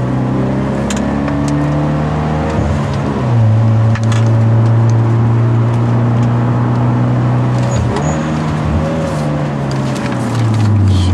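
Hyundai Genesis Coupe 2.0's turbocharged four-cylinder engine running hard on a winding climb. Its pitch drops about three seconds in, climbs again around eight seconds, and drops once more near the end.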